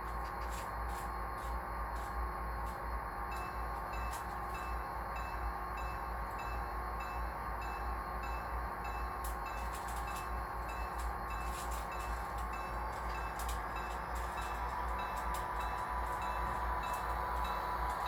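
Model Amtrak diesel locomotives' Tsunami 2 sound decoders playing diesel engine sound through their small speakers, with a locomotive bell ringing at about two strokes a second from about three seconds in. Scattered sharp clicks sound over it.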